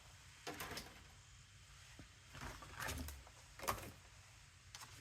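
Paper and card pieces being handled on a craft table: a few short, soft rustles and light taps, the loudest about three and three-quarter seconds in.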